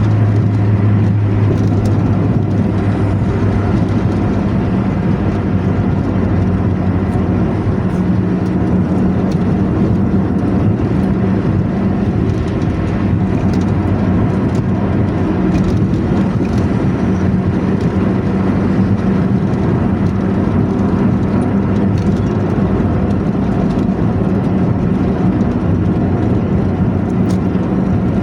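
Bus diesel engine running steadily under way through a 'knalpot ngorok' exhaust, a deep snoring drone. Its pitch drops about a second in and a higher note comes up strongly from about eight seconds in, with road noise underneath.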